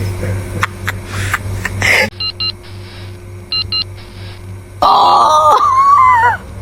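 A robot vacuum's steady motor hum cuts off about two seconds in, followed by two pairs of short electronic beeps. Near the end comes a loud, wavering voice-like cry lasting over a second.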